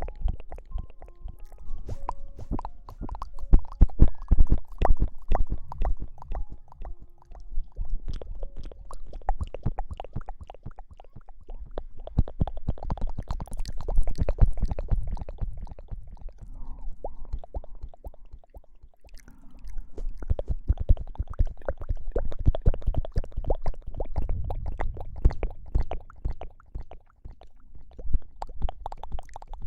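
Close-miked hair washing: dense crackling and squishing with soft low thumps as hair is rubbed right at the microphone. It eases off briefly about 11 and 18 seconds in.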